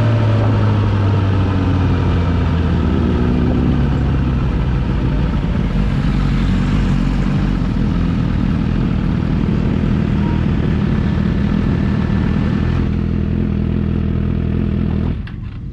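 Motorcycle engine under way, its note falling over the first few seconds and then running steadily at moderate revs. Near the end the sound drops away abruptly, followed by a few clicks.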